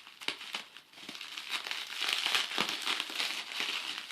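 Wrapping being crinkled and handled: a few scattered crackles at first, then about a second and a half in a steady, denser crinkling that grows louder.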